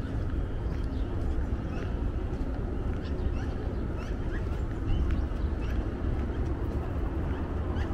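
City street ambience: a steady low traffic rumble, with small birds chirping many times in short, high notes.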